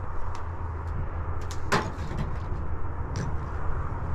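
Wind rumbling on the microphone, with a few sharp knocks or clicks, the loudest about two seconds in.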